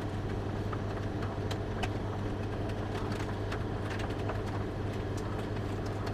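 Steady low background hum, with scattered faint clicks and taps of power supply cables and connectors being handled and plugged in inside a desktop PC case.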